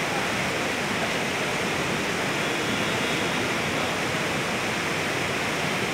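Heavy churning white water rushing steadily below, an unbroken noise like a waterfall.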